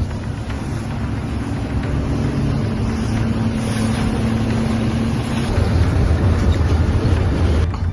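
Boat engine running steadily with wind buffeting the microphone; about five and a half seconds in, a faint held tone drops out and the low rumble gets louder, and the sound cuts off suddenly near the end.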